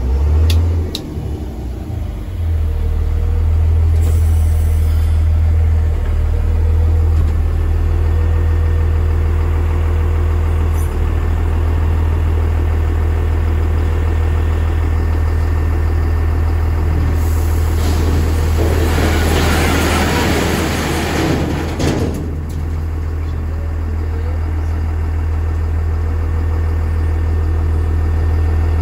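Dump truck's diesel engine running steadily as the bed is tipped, heard from inside the cab. About 18 seconds in comes a rush of noise lasting about four seconds, the load of broken concrete sliding out of the bed.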